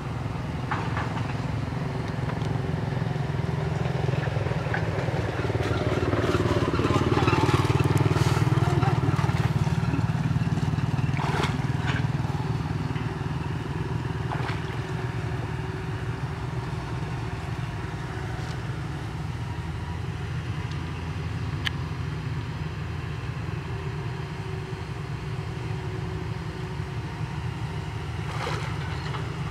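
A motor vehicle passing on a nearby road, its engine swelling loudest and dropping in pitch about six to ten seconds in, over a steady low rumble, with a few short sharp knocks.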